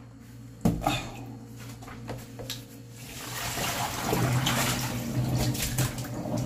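A soft fish bag handled with a knock and a few clicks, then water with live rockfish poured from it splashing into a stainless steel sink, the splashing building from about three seconds in.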